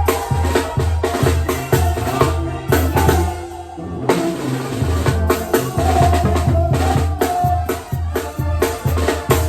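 Banda-style music with a snare drum (tarola) and bass drum driving over a pulsing low bass line, briefly dropping out for about half a second a little past three seconds in.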